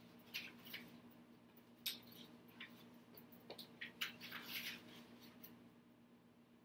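Faint scattered clicks and light scraping of kitchen utensils and containers being handled on a counter, over a low steady hum; the handling sounds die away about five and a half seconds in.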